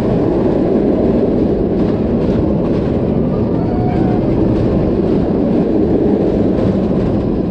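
Wind rushing over the camera microphone on a steel roller coaster in motion, mixed with the train's wheels running on the track: a loud, steady rushing noise without breaks.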